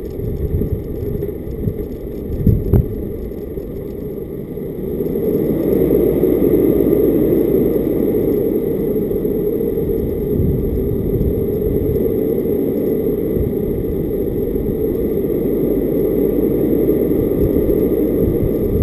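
A vehicle driving along a narrow tarmac road, heard from a camera mounted on its roof: a steady low rumble of road and wind noise that grows louder about five seconds in. A couple of short thumps come around two to three seconds in.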